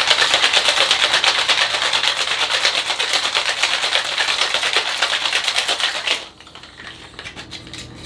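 Ice rattling fast and hard inside a metal cocktail shaking tin during a hard shake. The rattle stops suddenly about six seconds in.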